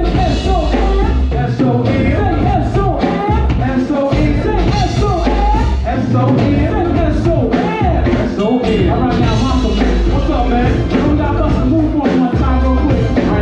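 Live band music: a steady drum kit and heavy bass groove with keyboard, under a wavering lead melody.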